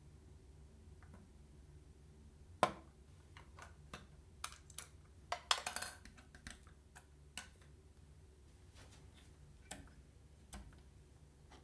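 Hands handling PC hardware parts: a loud sharp click a little over two seconds in, then a quick run of clicks and knocks with a brief rustle in the middle, and a few scattered clicks after. A low steady hum runs underneath.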